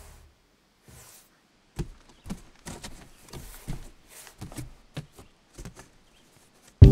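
Cardboard box flaps and plastic-wrapped placemats being handled, a run of short, irregular rustles and taps. Loud guitar music comes in at the very end.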